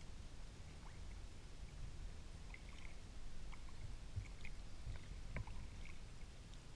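A kayak moving through calm water: faint, scattered water drips and small splashes over a low, steady rumble.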